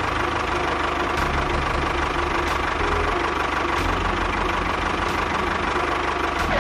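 An engine running steadily, with a low, even pulsing throughout.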